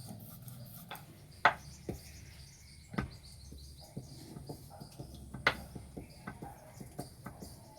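Light clicks and knocks of kitchen utensils on a rolling board as paratha dough is worked by hand, with three sharper knocks among many faint ticks.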